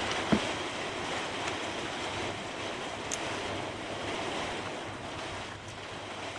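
Steady rushing noise, like wind on the microphone, with a few light clicks; the loudest click comes about a third of a second in.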